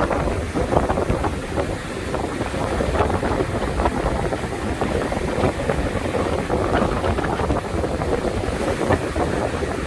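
Strong wind of about 45 km/h blowing steadily on a beach, buffeting the microphone with a constant low rumble and flutter.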